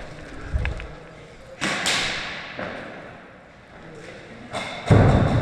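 A sudden whooshing burst about one and a half seconds in that fades over about a second, then a loud thud near the end.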